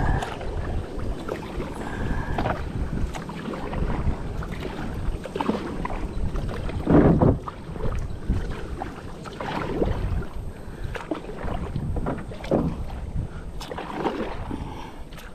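Kayak paddle dipping and splashing in river water in an uneven rhythm, roughly one stroke every two seconds, over a low rumble.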